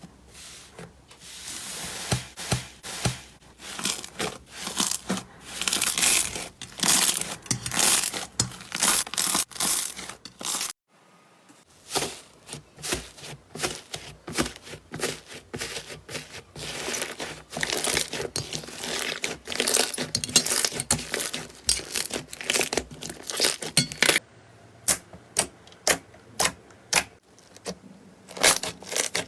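Slime being squeezed and worked, giving dense runs of crackling clicks and pops. The sound cuts off abruptly about 11 seconds in and changes again about 24 seconds in, as one clip gives way to the next.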